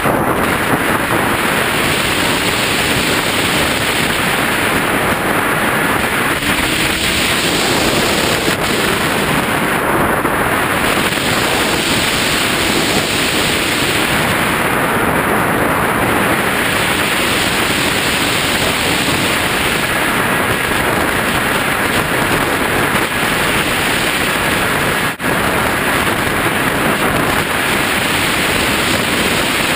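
Steady rush of wind and propeller noise on a radio-controlled plane's onboard camera in flight, with a brief dropout about 25 seconds in.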